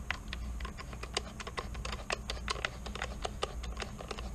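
Screwdriver driving a steel screw into a Ruger 10/22 receiver: a quick, irregular run of small clicks, several a second, over a low steady hum.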